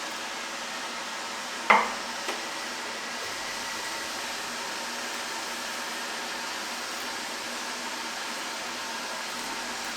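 A single sharp clink that rings briefly, with a lighter tap about half a second later, over a steady rushing background noise.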